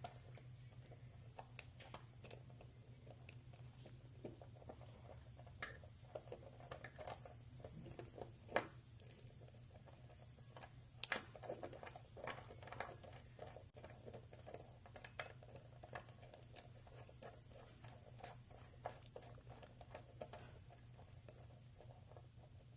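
Faint small clicks and scrapes of a deadbolt lock cylinder's retaining ring being worked around by hand while its retaining pin is held down, with a few sharper ticks, over a steady low hum.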